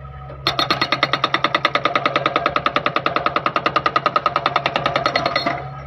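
Okada 650 hydraulic breaker on a Hitachi ZX48U-5A mini excavator hammering rapidly, about ten blows a second. It starts about half a second in and stops suddenly near the end, over the excavator's engine running steadily.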